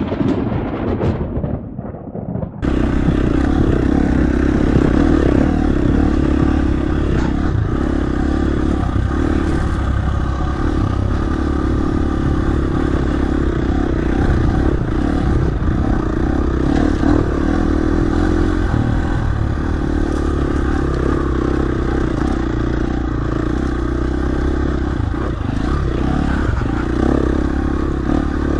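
Dirt bike engine running steadily. It comes in sharply about two and a half seconds in, and the level stays even from then on.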